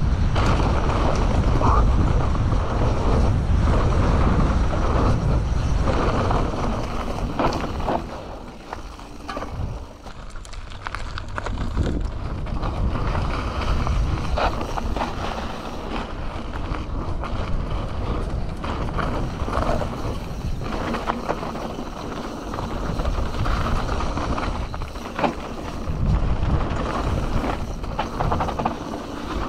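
Wind rushing over an action camera's microphone with tyre noise on a dirt trail, and clattering knocks from a Canyon Torque mountain bike riding downhill over rough ground. The noise drops for a couple of seconds about nine seconds in, then picks up again.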